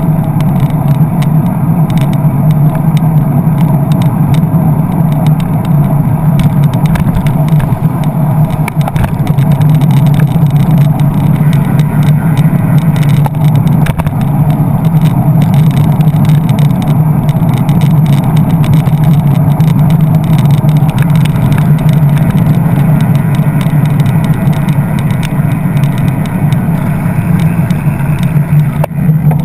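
Loud, steady motor-vehicle noise: an engine running with a constant low hum amid traffic, heard close up.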